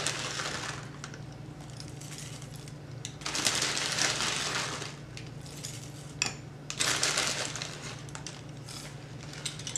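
Dry granola being poured onto a bowl: a crunchy rattle of clusters falling, in two longer pours about three and seven seconds in, with a few sharp clicks between them.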